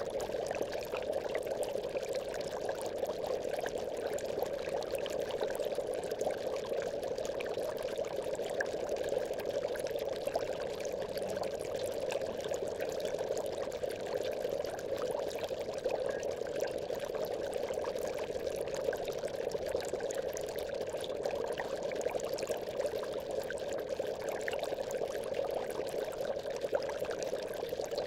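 Aquarium water bubbling: a continuous stream of bubbles, steady and unchanging.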